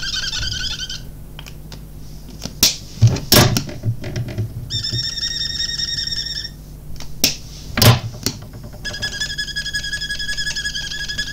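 Marker nibs and an acrylic stamping block squeaking as colour is laid on the block and the block is pressed onto watercolour card: three long steady squeaks. Sharp clicks and knocks of pens and the block being handled come between them.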